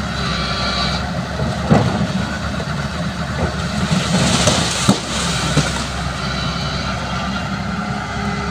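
Hyundai hydraulic excavator's diesel engine running steadily under load as it pushes a tree over by the roots. Two sharp cracks, about two and five seconds in, with a rush of rustling branches between them as the tree goes over.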